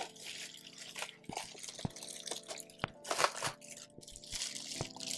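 Plastic bubble wrap being unfolded and handled by hand, crinkling and rustling in irregular bursts, loudest a little past the middle, with a few short sharp clicks.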